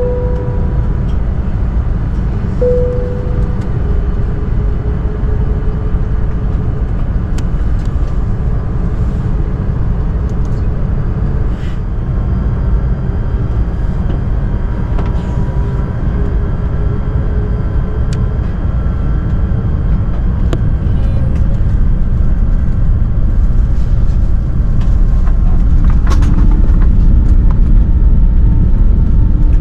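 Airbus A380 cabin noise: a steady deep rumble from its Rolls-Royce Trent 900 engines and airflow, with two short dings near the start, growing louder over the last few seconds.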